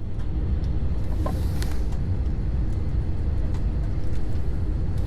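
Steady low rumble and hum of an easyJet airliner heard inside the cabin, its engines running at low power, with a few light clicks.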